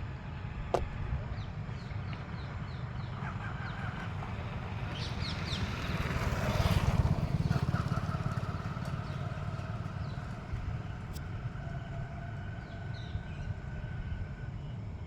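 Outdoor ambience: a steady low rumble with birds chirping, and a vehicle passing that is loudest about seven seconds in.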